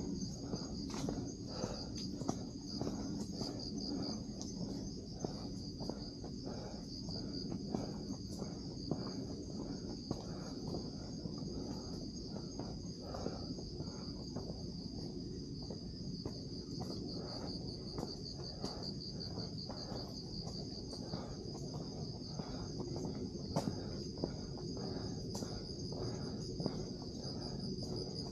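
A steady chorus of night insects trilling high and continuously, pulsing in places. Under it are the footfalls and small knocks of people walking a trail.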